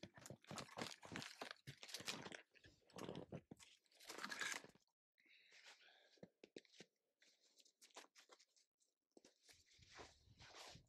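Crunching footsteps in snow and branches and clothing rustling as a person pushes through brush, busy for the first four seconds or so, then a few faint crackles, with more rustling near the end.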